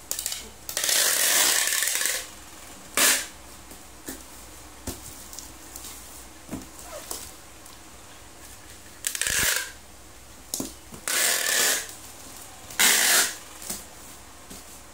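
Packing tape pulled off a handheld tape dispenser and pressed onto a cardboard box, in several noisy strips: a long pull about a second in, a short one near three seconds, and three more between about nine and thirteen seconds.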